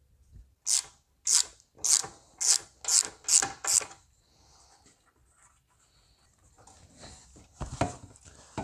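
Pliers twisting brittle plastic retaining clips off the back of a plastic bumper cap: six short, sharp scraping strokes about every half second. Then quieter handling and a single thump near the end as the cap is moved.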